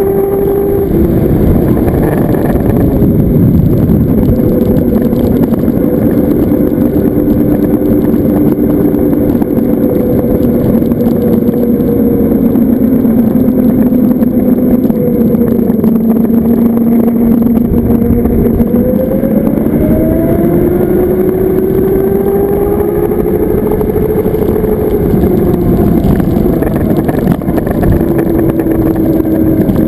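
Zero FX electric motorcycle underway: wind rushing over the microphone and road noise, with the electric motor's whine shifting in pitch as the speed changes, rising about two-thirds of the way through and dropping again later.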